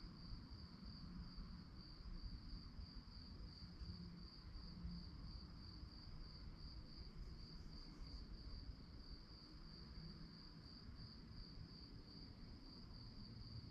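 Crickets chirping in a steady, evenly pulsed high trill, with a faint low rumble beneath.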